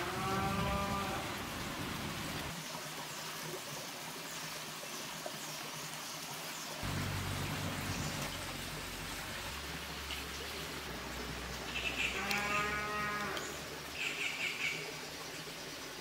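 A farm animal calling in the background: one drawn-out call at the start and another about twelve seconds in, followed by a few short, higher calls.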